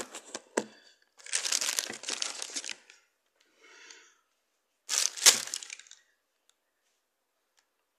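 A thin plastic bag being crumpled and handled, crinkling in bursts. A few clicks come at the start, a long crinkle about a second in, and another near five seconds in with one sharp crack.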